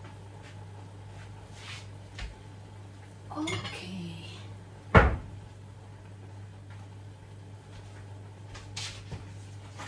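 Dishes and utensils clinking and knocking as kitchenware is handled, with one sharp, loud knock about five seconds in, over a steady low hum.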